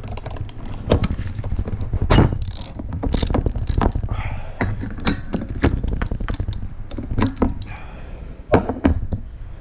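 Belt tensioner parts and hand tools being handled: irregular clicks, taps and knocks of metal parts over a steady low rumble.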